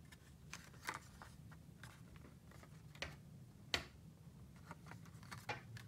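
Faint scattered clicks and light crinkles of a clear plastic clamshell blister package being handled and turned in the hands, with a sharper click about three and a half seconds in and two more near the end.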